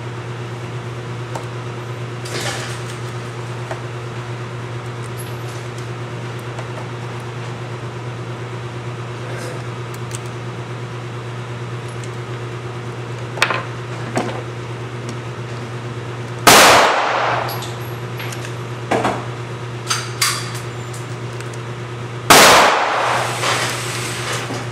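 Two loud gunshots about six seconds apart, each echoing off briefly, over the steady hum of range ventilation. A few lighter clicks and knocks come before and between them.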